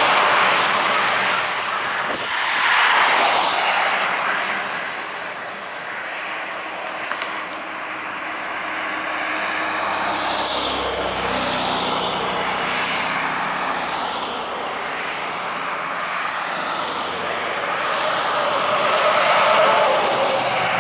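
Cars passing on a highway bridge, the tyre and engine noise swelling and fading as each goes by, with a deeper rumble about halfway through.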